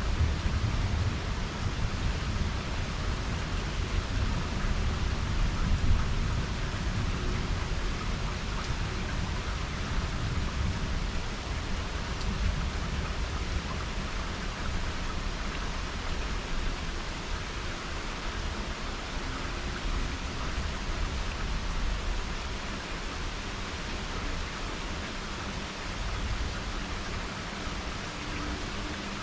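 Steady rain during a severe thunderstorm, with a low thunder rumble that is strongest in the first few seconds and slowly dies away.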